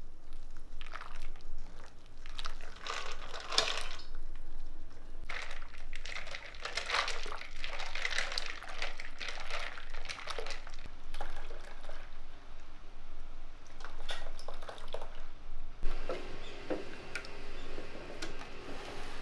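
Silicone spatula stirring and scraping liquid egg-tart custard in a stainless-steel bowl: a wet, sloshing swish in irregular strokes. Near the end the stirring stops, a single knock is heard, and custard is scraped into a plastic container.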